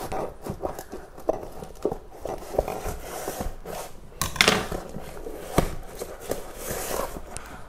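Cardboard box being cut along its tape with scissors and its flaps pulled open: scattered scrapes, taps and rustling of cardboard, with a louder scrape about four and a half seconds in.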